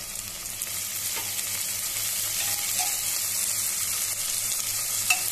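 Sliced onion, garlic and green chilli sizzling steadily in hot mustard oil in a pressure cooker, stirred with a slotted metal spatula that scrapes and taps against the pot, with a sharper tap near the end.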